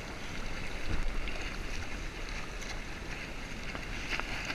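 Seawater lapping and sloshing around a waterproof action camera held at the surface, with a few small splashes.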